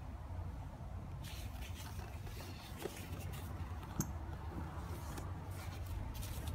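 Faint rustling and scraping of gloved hands handling a woven web shoulder strap, with one sharp click about four seconds in, over a steady low hum.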